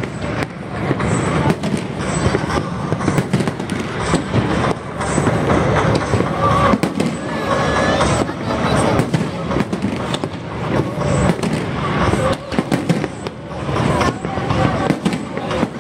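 Aerial fireworks bursting in quick, irregular succession, one bang after another, with a large crowd talking underneath.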